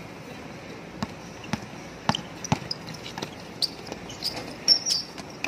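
Basketball bouncing on an outdoor concrete court: a run of sharp bounces about half a second apart, followed by a few short high-pitched squeaks near the end, the loudest just before the end.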